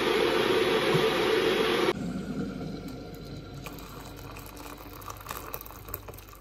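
A kettle heating water with a steady, loud hiss, cut off suddenly about two seconds in. Then hot water being poured from the kettle into a mug over a tea bag, a quieter splashing fill that slowly fades.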